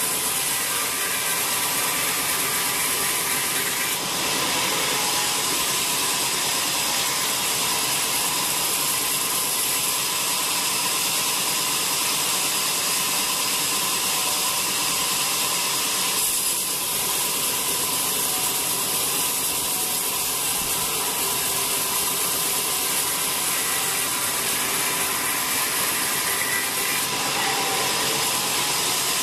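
Horizontal band sawmill running steadily, its blade cutting through a wet teak log: a dense, even hiss of sawing with a steady whine on top.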